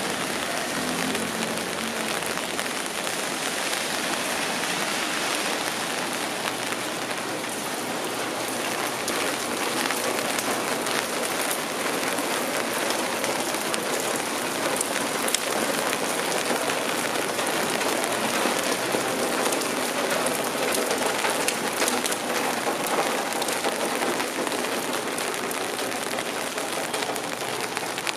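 Steady rain falling: an even hiss with many close, fine drop ticks.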